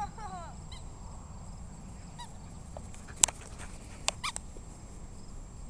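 Quiet outdoor background with a few faint, short animal calls, one falling in pitch right at the start. Three sharp clicks come a little past the middle as the camera is handled.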